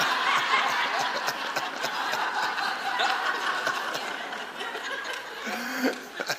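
A congregation laughing together at a joke, a crowd of many voices, dying down gradually toward the end.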